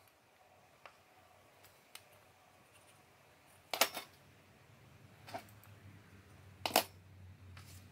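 Scattered clicks and clacks of a metal digital caliper and small wooden blocks being handled and set down on a wooden workbench: a few faint taps, then two louder clacks about halfway through and near the end.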